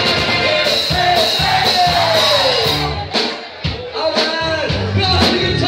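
A live funk band with a horn section plays, with singing over dense, loud band sound. About three seconds in the music briefly drops out, then the band comes back in.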